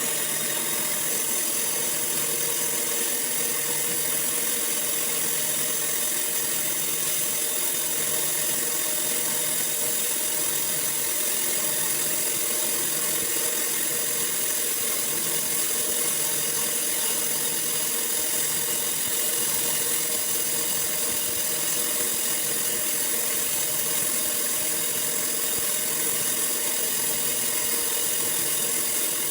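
Sawmill running steadily while sawing a log into boards: a constant machine drone with several steady high whines.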